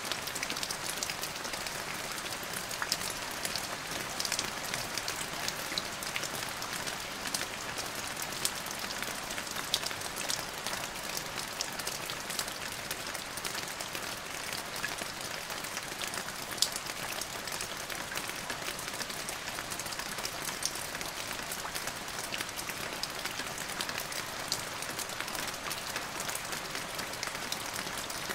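Steady rain falling: an even hiss with many individual drops ticking through it.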